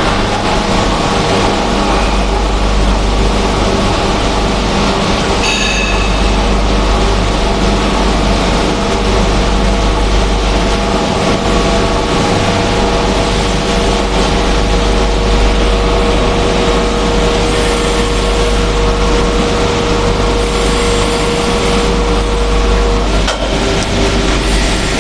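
Welding positioner's electric tilt drive running as the table tips over toward 90 degrees: a steady whine starts about five seconds in and stops a couple of seconds before the end, over a constant low machinery hum.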